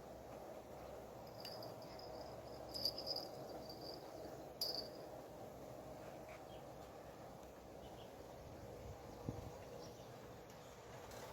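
Faint outdoor ambience with an insect's high, pulsed trill that starts about a second and a half in and stops near the five-second mark, over a low steady background and a few faint clicks.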